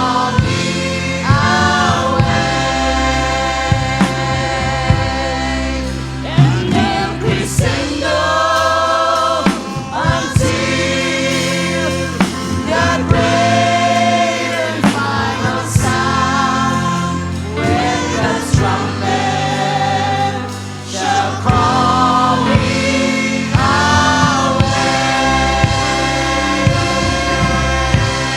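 A choir singing a gospel song over instrumental accompaniment, with long held notes sung with vibrato and a steady beat.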